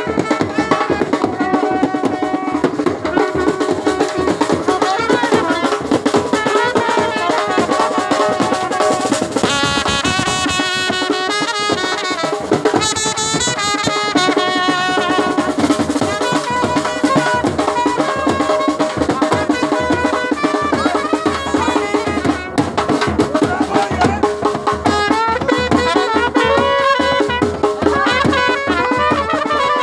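Street band playing: trumpets carry a melody over a drum beaten with sticks, with no break.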